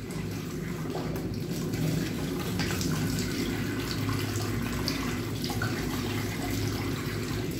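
Faucet running steadily into a sink partly filled with water, splashing as a cat is washed under it.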